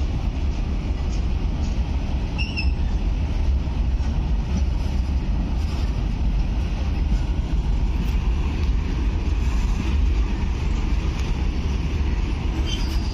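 A rake of Indian Railways BOXNHL open-top freight wagons rolling past at close range: a steady, heavy rumble of steel wheels on the rails. A brief high squeak sounds about two and a half seconds in, and another near the end.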